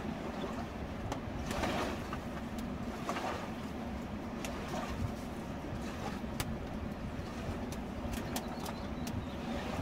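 Small stick campfire crackling with scattered sharp pops, more of them near the end, while sticks are shifted and pushed into the stone fire ring, over a steady low rush of background noise.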